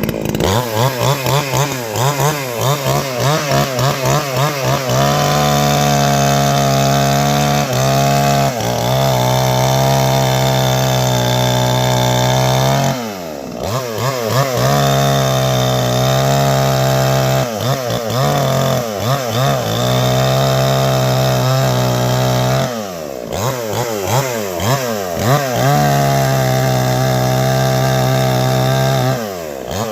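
Gas chainsaw's small two-stroke engine revving in quick, uneven throttle blips, then held at a steady high speed for several seconds at a time, three or four times, with short drops back to lower revs in between.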